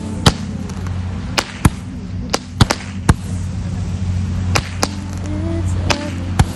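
A dozen or so sharp pops or cracks at irregular intervals over a steady low hum.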